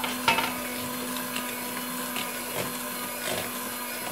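Electric hand mixer running steadily, its twin beaters whisking batter in a plastic bowl, with a few short knocks, the sharpest just after it starts.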